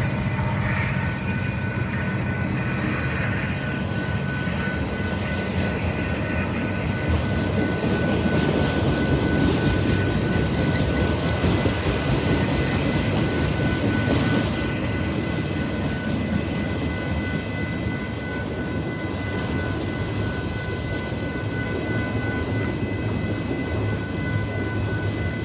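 Long freight train rolling past: a steady rumble of cars on the rails, with thin, steady, high-pitched ringing tones over it. The rumble is loudest in the middle and eases off a little after.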